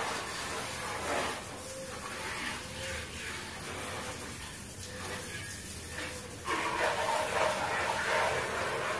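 Water jet from a plastic hose spray gun hissing and splashing against a motorcycle, growing louder about two-thirds of the way in.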